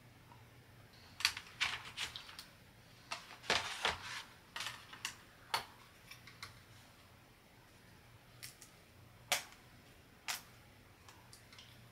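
Small pre-cut wooden kit parts being snapped out of their thin wooden sheet by hand: a scatter of sharp cracks and clicks, thickest in the first half, then three single snaps later on.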